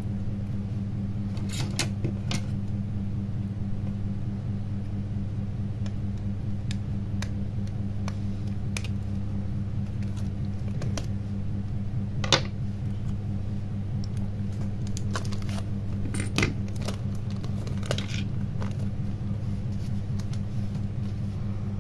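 Scattered small clicks and taps of plastic and metal phone-housing parts as a Nokia N71 is pried apart by hand and its pieces set down on a wooden bench, the sharpest click about halfway through and a cluster near the end, over a steady low electrical hum.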